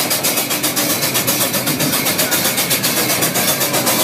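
Miniature steam locomotive running through a tunnel: a fast, even chuffing of about seven beats a second, heard from an open passenger car.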